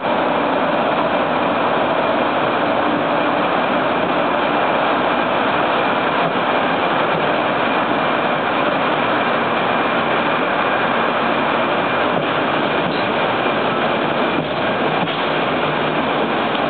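Container freight train hauled by an EF200 electric locomotive pulling out, its wagons rolling past at close range: a steady rolling noise with a faint high whine running through it.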